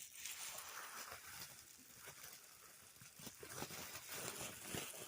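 Plastic packing wrap rustling and crinkling as it is handled, with scattered small clicks and crackles.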